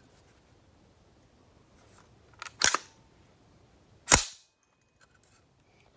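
Two sharp metallic clacks from a 9mm AR pistol's action, about a second and a half apart, with a faint click just before the first and the second the loudest. The sound fits the charging handle being pulled back and the bolt let go to slam home.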